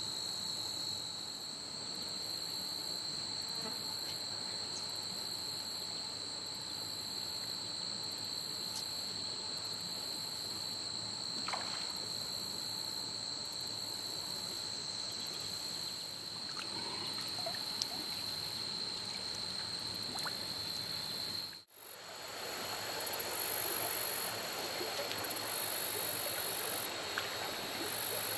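Late-summer insect chorus in streamside meadow grass: a steady high trill with a very high, pulsing buzz above it, over a faint trickle of creek water. The sound cuts out for an instant about two-thirds of the way through, then the running water and the high buzzing are louder.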